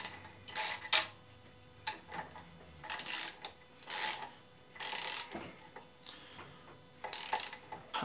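A hand ratchet wrench clicking in short runs, about once a second, as it is swung back and forth on the bolts of a chipper shredder's blade hub.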